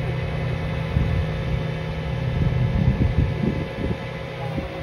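Engine running steadily with a low rumble, with a few louder irregular thumps over it.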